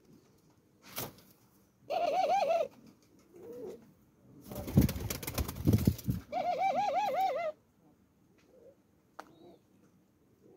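Red collared dove giving two rolling coos, each about a second long with a rapid quaver in pitch. Between them comes a loud, noisy flurry of rustling strokes, and there are a few light clicks.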